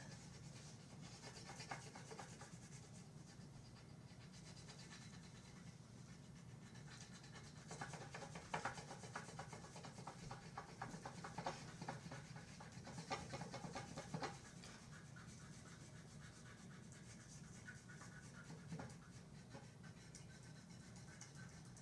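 Faint scratchy scribbling of colouring on paper: rapid back-and-forth strokes as a lion's face is filled in yellow, busiest between about 8 and 14 seconds in, over a low steady hum.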